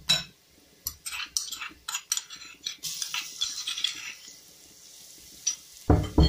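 A metal spoon clinking and scraping against a bowl as ginger-garlic paste is tipped into a pot of fried onions in hot ghee, with a short sizzle as the paste lands. Near the end there are a couple of heavier knocks.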